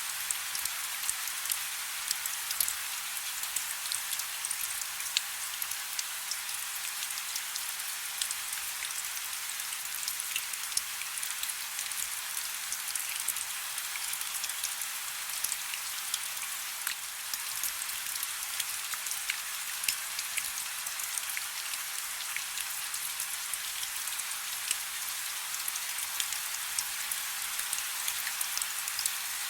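Steady soft rain: a dense, even hiss with many small raindrop ticks through it and almost no low rumble.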